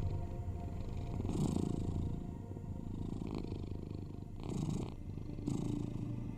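Domestic cat purring steadily, swelling and easing in uneven cycles every second or so.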